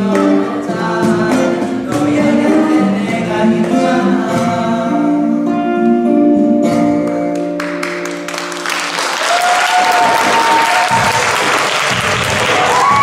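A choir sings the final chords of a song, holding the last one until about eight seconds in. The audience then breaks into applause and cheering, with loud shouts over it.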